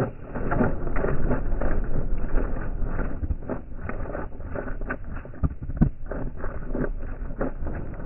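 Labrador retriever eating dry kibble from a stainless steel bowl: a dense, irregular run of crunching and clicking as it chews and the pellets rattle against the metal.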